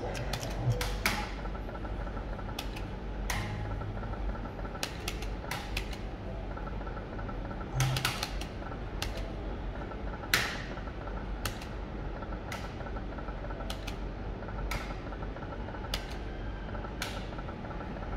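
Video slot machine being played through repeated spins: sharp clicks at uneven spacing, about one a second, the loudest about ten seconds in, over a steady low hum and a faint broken tone from the machine.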